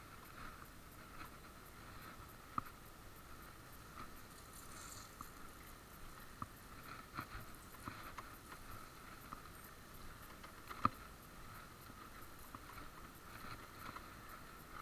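Faint, muffled knocks and rattles from an electric stand-up scooter rolling slowly over a gravel path, over a steady faint hiss. Two sharper knocks stand out, one a few seconds in and one about two-thirds of the way through.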